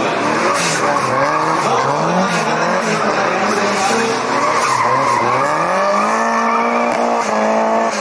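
Rear-wheel-drive rally car's engine revving up and down as it drifts around a barrel, tyres skidding on the asphalt. Near the end the revs are held steady and high, then drop.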